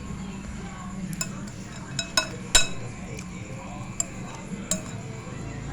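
A spoon clinking against a bowl, about six sharp ringing clinks, the loudest a little past halfway, over a steady low hum.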